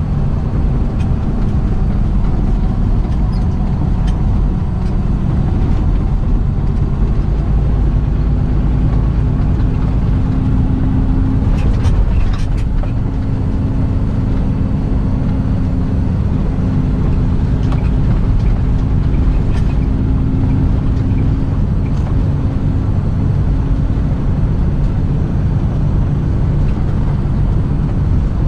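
Semi-truck driving on the road: a steady engine drone over low road and tyre rumble, with a few brief clicks about twelve seconds in.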